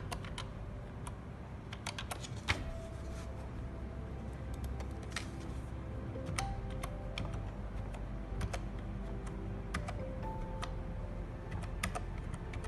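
Computer keyboard typing: irregular key clicks as digits are keyed into a web form, over soft background music.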